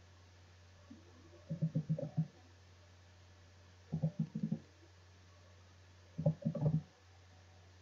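Computer keyboard typed in three short bursts of quick, dull keystrokes, about two seconds apart, as numbers are entered, over a steady low electrical hum.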